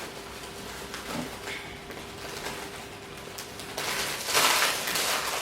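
Plastic bag rustling and crinkling for about a second and a half near the end, over a faint steady hum.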